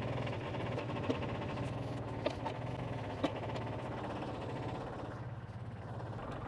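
New Holland tractor engine idling steadily, with three short sharp knocks, about one a second, in the first half.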